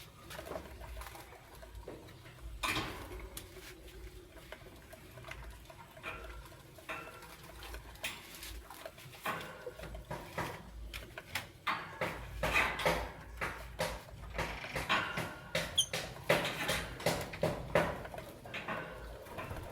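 A pair of lovebirds making short chirps and chattering calls, mixed with rapid small clicks and scratches. The calls get busier and louder in the second half, with one brief high whistle.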